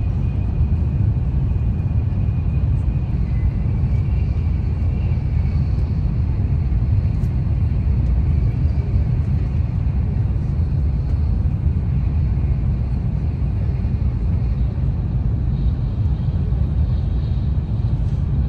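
Cabin noise of an N700A Shinkansen bullet train running at about 280 km/h: a steady deep rumble with a faint high whine above it.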